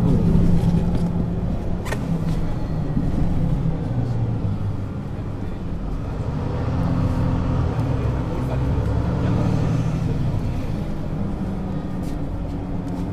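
Mercedes-Benz Citaro C2 city bus's diesel engine running while under way, a low drone that eases off and then builds again.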